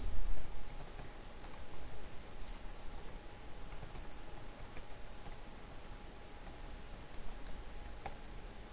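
Computer keyboard keys clicking as a line of code is typed: scattered, faint, irregular keystrokes over a low hiss.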